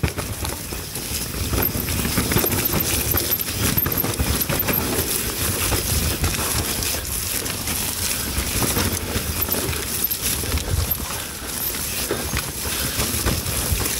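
Mountain bike descending a wet, muddy enduro trail, recorded on the rider's action camera. Steady wind and tyre noise runs throughout, with constant rattling and knocks from the bike over the rough ground.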